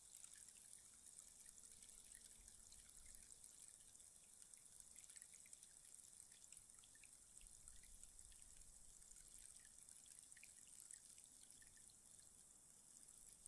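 Rainstick with its pellets trickling down inside the tube: a faint, steady patter of many tiny clicks, like light rain.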